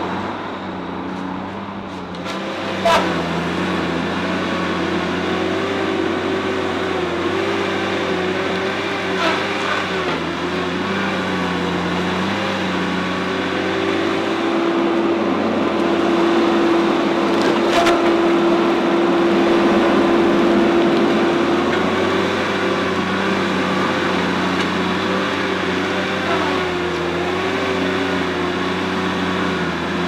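Tigercat 870C feller buncher's diesel engine running under load, its pitch shifting as the machine works, with a higher steady tone through the middle. A sharp crack about three seconds in and another short knock a little past halfway.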